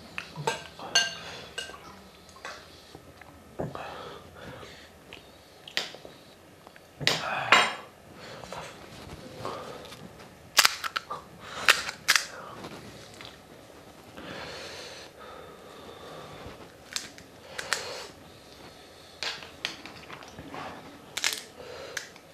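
Irregular sharp clicks and clinks of a metal spoon against bowls and a plate, mixed with the crisp shells of fuchka (pani puri) cracking and crunching as they are opened, filled and eaten.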